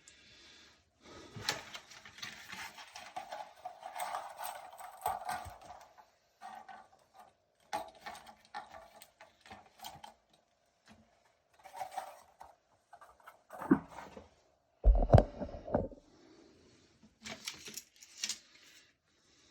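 Hands working with plastic toilet-tank parts: irregular clicks, rattles and rustling, with a heavy low thump about 15 seconds in.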